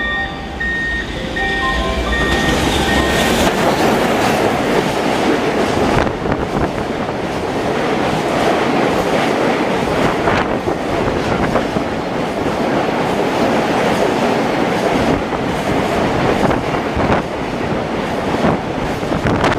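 Container freight train running through a station without stopping: a loud, steady rumble of many wagons rolling on the rails, building up about two seconds in, with repeated sharp clacks from the wheels.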